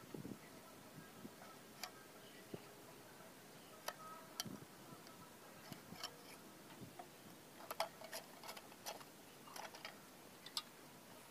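Faint, irregular clicks and light taps of bamboo sticks knocking against each other and a wooden plank as they are handled, over a low steady hiss.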